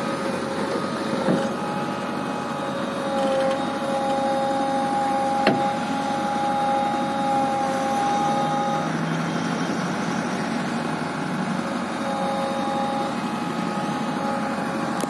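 JCB 3DX backhoe loader's diesel engine running under load, with a steady whine from its hydraulics, as the backhoe arm and stabilizer legs move the raised machine toward the truck bed. There is a sharp click about five and a half seconds in.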